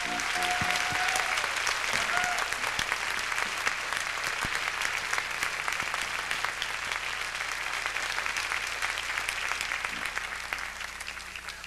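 Concert audience applauding steadily, dying away near the end.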